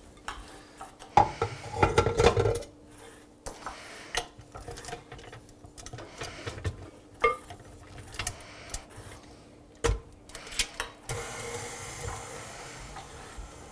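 Kitchen clatter of bowls and utensils being handled, with loud knocks about two seconds in and near ten seconds, mixed with the scraping of a lemon being zested on a microplane grater. A faint steady hum runs underneath.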